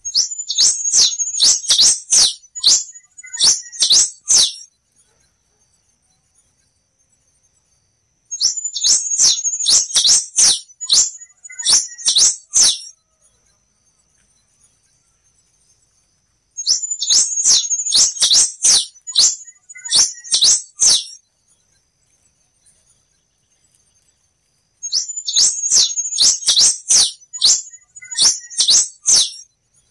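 Black-and-rufous warbling finch (quem-te-vestiu) singing: four loud song phrases of rapid high notes, each about four seconds long, repeated about every eight seconds. A faint steady high tone runs underneath.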